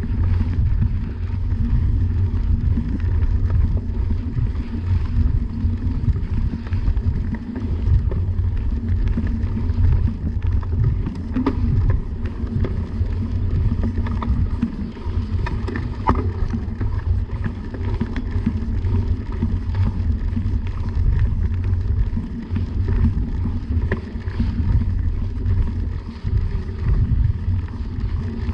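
Fat-tyre mountain bike rolling along a dirt trail: a steady low rumble of tyres and wind buffeting the camera microphone, with a few light clicks and rattles from the bike.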